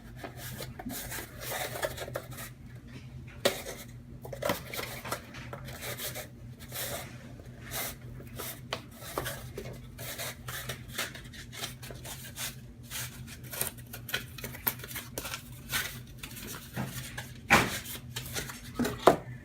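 Cardboard dividers of a BCW card box being folded and creased by hand: rubbing, scraping and sharp taps and snaps scattered throughout, the loudest a few seconds in and near the end, over a low steady hum.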